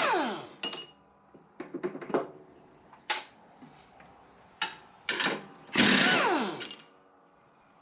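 A power driver with a 15 mm socket working on the mower deck's fasteners, run in short bursts; each run ends with a whine falling in pitch as it winds down, with metal clinks and clanks of the tool and socket in between.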